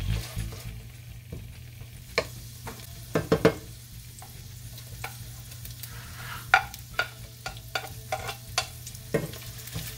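Ground beef frying in oil in a large aluminium skillet, sizzling faintly while a wooden spatula stirs and scrapes it. Scattered sharp clicks and knocks of utensils against the pan, loudest a quick cluster about three seconds in, over a steady low hum.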